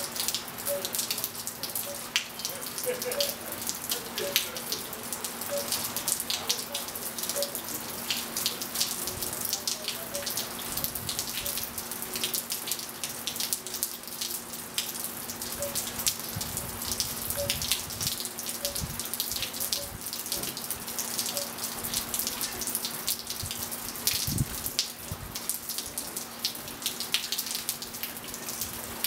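Rain falling on a pool and patio, a dense steady patter of drops and drips with water splashing. A few soft, short wind-chime notes sound near the start and again midway, over a steady low hum.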